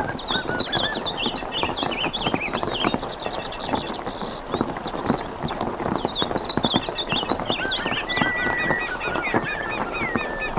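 Many birds calling together in short chirps and whistles, over a steady patter of small irregular taps.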